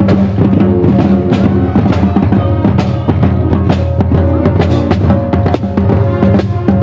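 Marching band playing: brass holding sustained notes over a steady beat of bass drum and snare drum strokes.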